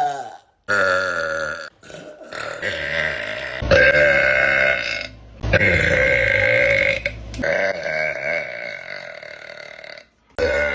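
A woman's long, loud burps, about four of them one after another, each several seconds long and each cutting off abruptly into the next.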